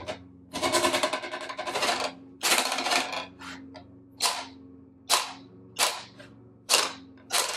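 A ruler held over a table edge being twanged by flicking its free end, about eight times. The first two twangs buzz on for about a second and about half a second. The later ones, with less of the ruler hanging over the edge, are short and die away quickly.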